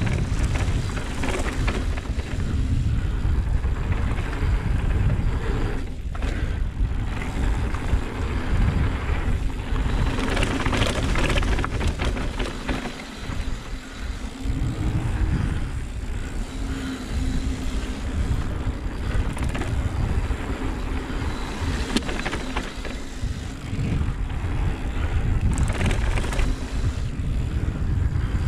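Mountain bike descending a dirt trail at speed: continuous tyre and trail noise with rattling from the bike, and wind rushing over the chest-mounted camera's microphone as a low rumble.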